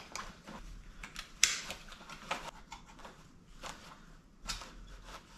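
Scattered clicks and rustling of a plastic leg holster and nylon belt straps being handled and fitted, with the sharpest click about a second and a half in.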